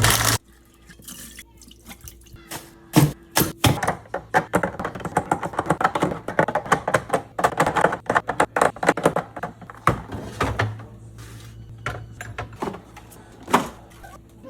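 Washing up at a sink: water trickling and dripping, with a quick run of knocks and clinks from items being handled from about three to ten seconds in.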